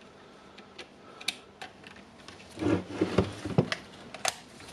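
Light clicks and taps of small-part handling on a Makita hammer drill's brush holders as the carbon brush springs are lifted, with a short burst of busier rattling and clicking a little past halfway.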